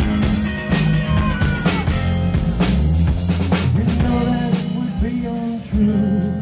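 Live rock music: electric guitar played over a drum kit, with steady drum hits and sustained low notes.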